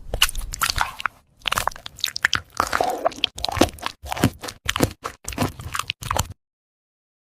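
Close-up crunching and chewing of crisp food: a rapid run of crackly bites and chews that cuts off abruptly about six seconds in.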